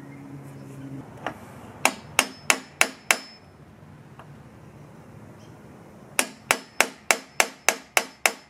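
Hammer tapping a punch against an aluminium extrusion to mark hole positions before drilling pilot holes: a run of about six sharp metallic taps, a pause of about three seconds, then another run of about eight, roughly three taps a second.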